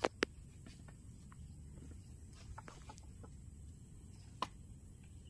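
Chicken clucking: two short, sharp clucks in quick succession at the start and another about four seconds in, with scattered faint bird chirps over a low outdoor hush.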